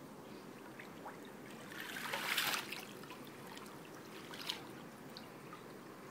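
Pool water swishing and lapping as a floating body is drawn through it, with one louder swish about two seconds in and a shorter, sharper one a couple of seconds later.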